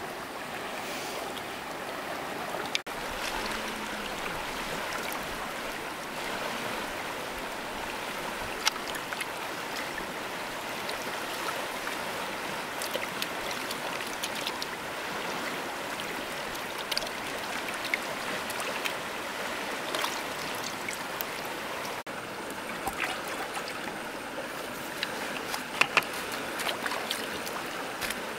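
Steady flowing of a river, with scattered short sharp clicks and knocks, more of them near the end.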